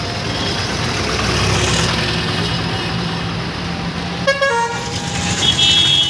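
Busy street traffic heard from a moving rickshaw: a steady rumble of engines and road noise, with vehicle horns tooting about four seconds in and again near the end.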